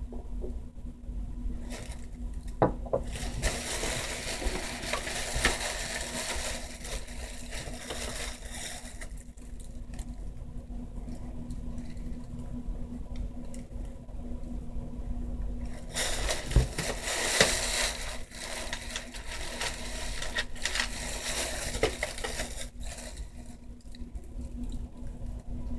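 Hands at work with acrylic nail supplies: two stretches of scratchy rubbing, several seconds each, with scattered light clicks and taps, over a steady low hum.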